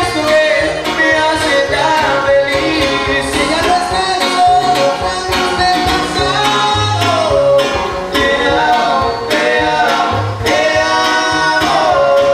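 Son huasteco trio playing live: violin melody over strummed jarana and huapanguera, with singing.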